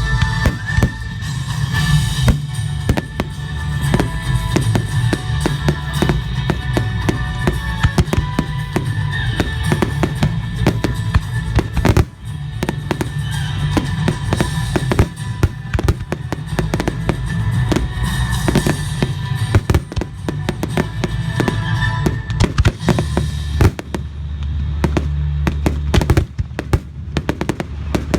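Fireworks finale: many aerial shells bursting in quick succession, deep booms mixed with sharp cracks, with music playing along. About three quarters of the way through the music drops away and a dense run of crackling bursts goes on.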